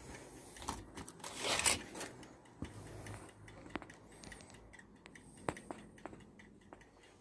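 Faint handling sounds: a short rustle about a second and a half in, and scattered light clicks and taps as a diecast model car is moved and set down on a slot-car track.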